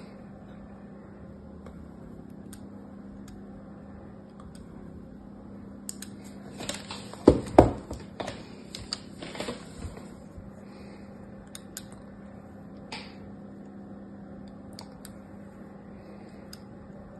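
Bars of soap knocked and pressed against a tabletop: a cluster of dull knocks in the middle, the two loudest about seven seconds in. Elsewhere there are faint, sparse ticks of a snap-off utility knife scoring and shaving soap, over a steady low hum.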